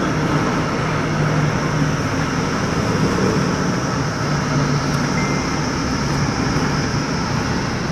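Steady road noise inside a moving car: the engine's low hum and tyre noise, unbroken.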